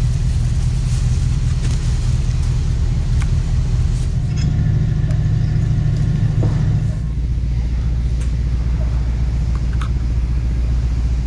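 Off-road truck engine running with a steady low rumble, its note shifting lower about seven seconds in, with a few light clicks over it.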